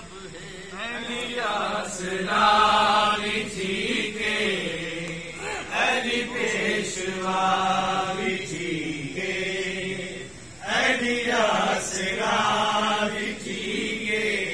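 A voice singing long, drawn-out, ornamented phrases in a chant-like style, with notes held for about a second near the start and again in the middle, over a steady low drone.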